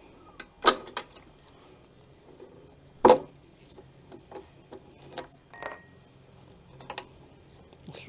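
Spanner clicking and clinking against the spark plug and the engine top of a Victa Power Torque lawnmower as the spark plug is loosened and taken out. There are a few separate sharp metal clicks, the loudest about three seconds in, and one near six seconds rings briefly.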